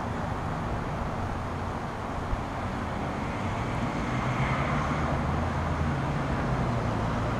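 Road traffic passing, a steady rush of tyres and engines. About halfway through, a vehicle's engine hum grows louder as it goes by.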